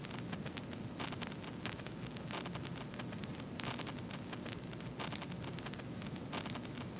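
Crackling static hiss of a video-glitch sound effect: a steady noise peppered with irregular clicks and crackles.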